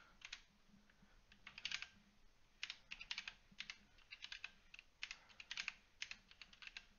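Faint computer keyboard typing: short runs of keystrokes, a group about every second.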